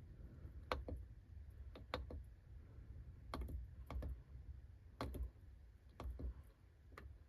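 Irregular sharp clicks, about one or two a second, over a faint low rumble, from the car radio's controls being worked to tune in a station.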